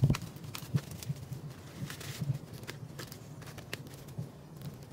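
Quail being plucked by hand: irregular soft ticks and rustles as feathers are pulled out and drop among dry leaves, with a sharper click right at the start.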